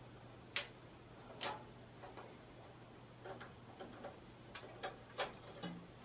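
Plastic clicks and light ticks of power supply cable connectors being handled and pushed into place inside a desktop PC case: two sharper clicks in the first second and a half, then a run of smaller ones, over a faint steady hum.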